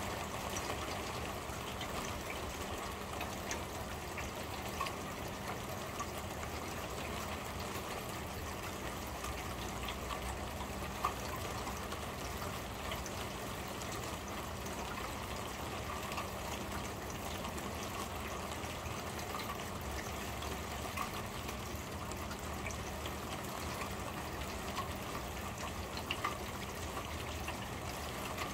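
Steady rain on a corrugated roof, heard from underneath: an even hiss peppered with drips and ticks, with a few louder single taps.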